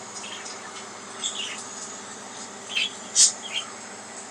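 Pet budgerigars chirping in short, high, scattered chirps, with one louder chirp about three seconds in.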